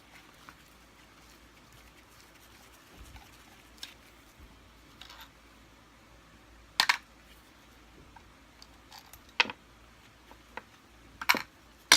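Scattered clicks and knocks of a screwdriver and screws being handled on a Kirby vacuum cleaner's housing during disassembly, a few separate taps with the loudest about seven seconds in.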